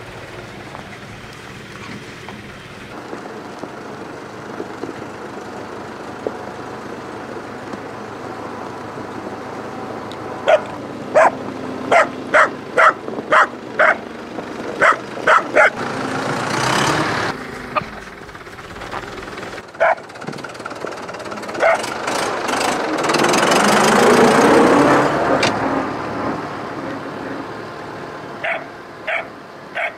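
A dog barking: a quick run of about ten sharp barks in the middle, and a few more near the end. In between, a vehicle's engine noise swells and fades as it passes.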